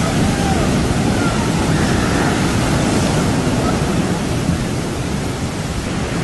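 Heavy surf: big waves breaking and whitewater rushing up the beach, a steady loud wash of noise.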